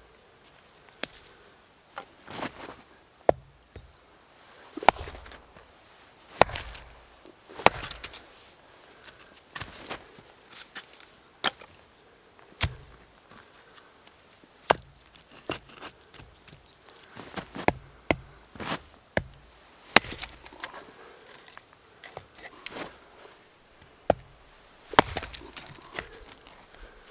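A blade chopping into wood in irregular sharp strikes, roughly one every second or two.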